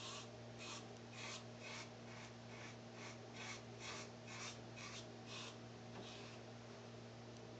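Merkur Futur safety razor scraping through lather and stubble in short strokes, about two a second, on the final pass of a shave; the strokes stop a couple of seconds before the end. A steady low hum runs underneath.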